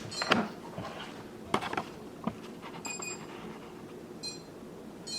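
Chuwi ILIFE V5s robot vacuum giving short, high electronic beeps every second or so while sitting on its charging dock, which the owner traces to the robot's main power button not being switched on. A few light knocks sound in the first two seconds.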